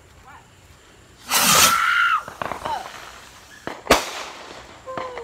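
Consumer aerial firework: a loud hissing launch with a whistling tone about a second in, then one sharp bang near four seconds as the shell bursts in the air.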